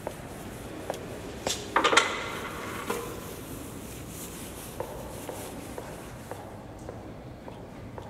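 A few scattered knocks and a brief clatter of hard objects about two seconds in, ringing on and echoing in a church interior.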